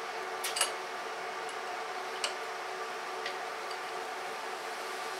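A few light clicks and taps from hands handling a small electric air compressor that is switched off, over a steady faint hum. Two clicks come close together about half a second in, then single ones around two and three seconds in.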